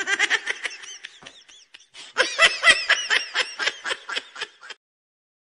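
Laughter in two bouts of rapid, pulsing 'ha-ha' sounds, the second louder than the first, then it cuts off suddenly.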